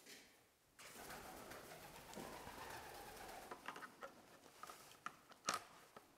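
Pigeons cooing in a small, echoey room, with one drawn-out coo about a second in. A few sharp clicks and knocks follow, the loudest about five and a half seconds in.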